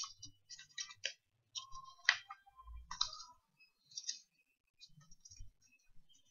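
A sheet of A4 paper being folded and creased by hand on a wooden table: intermittent crinkling and rustling with short sharp crackles, the sharpest about two seconds in. There are a few soft low thumps of hands pressing on the tabletop.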